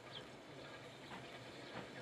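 Manx Electric Railway No. 34 'Maria', a diesel locomotive, approaching and still faint: a low steady engine hum with a few soft clicks.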